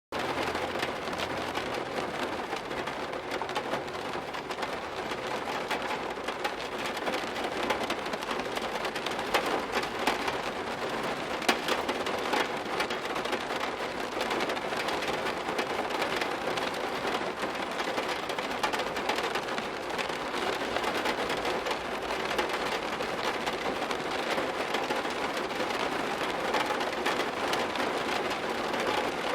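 Steady heavy rain falling, a dense even patter of drops. A low rumble sits under it for about the first ten seconds.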